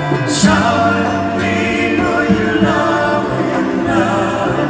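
Live concert music: a group of voices sings together in a sustained, gospel-style chorus over the band. The chorus comes in just after the start, following acoustic guitar.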